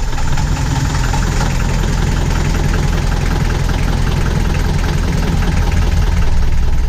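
Sailboat's inboard diesel engine idling steadily with a rapid clatter, just started and drawing its cooling water from a bucket of Barnacle Buster descaling solution, which it pumps through the heat exchanger and hoses.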